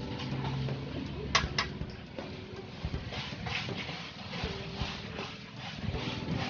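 Two sharp clinks of metal on a stainless steel mixing bowl about a second and a half in, over a busy background of stall noise.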